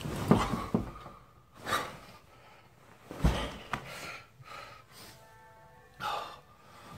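Bedding rustling in several bursts as a duvet is thrown off and a person sits up in bed, with a deep thump a little past the midpoint. Faint background music plays underneath.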